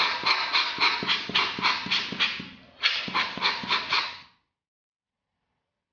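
A cleaning cloth rubbed back and forth on the glass of a Canon 55–250 mm zoom lens to wipe off fungus, in even strokes about four a second. There is a short break about two and a half seconds in, and the sound stops suddenly a little after four seconds.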